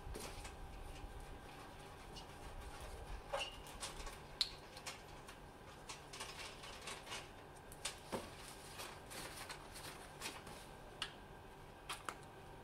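Faint rustling and scattered light clicks of a coil of white-insulated copper refrigerant pipe being handled and worked by hand, with a few sharper ticks. A faint steady hum lies underneath.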